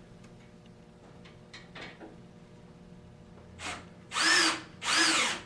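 Cordless drill run in three short bursts in the second half, each spinning up and winding down, driving a bolt into the frame of an aluminium chaise lounge.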